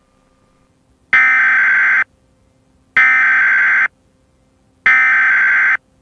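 Emergency Alert System SAME header: three identical bursts of digital data tones, each just under a second long with about a second of silence between them, encoding a Required Monthly Test.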